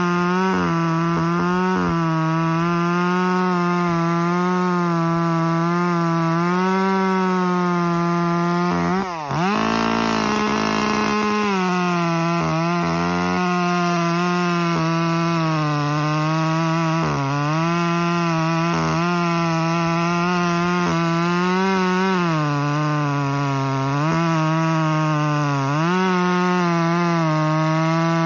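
Echo CS-2511T top-handle two-stroke chainsaw, with a muffler mod and advanced timing, running at full throttle while cutting through a dry birch round with a 3/8-pitch chain on a 12-inch bar. The engine note sags under load several times, and about nine seconds in it drops sharply and climbs back.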